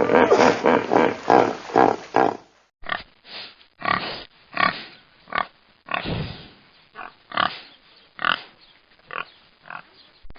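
Pig grunting: a run of short, rough grunts, roughly one or two a second. For the first couple of seconds, before a cut, a different clip of rapid repeated animal sounds is heard.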